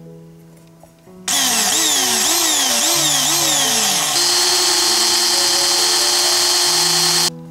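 Ryobi cordless drill running a bit against a thin stainless steel plate: the motor speeds up and slows down about four times, then holds a steady high whine for about three seconds before stopping suddenly. The bit is a wood-drilling bit, so it only dents the stainless plate rather than boring through.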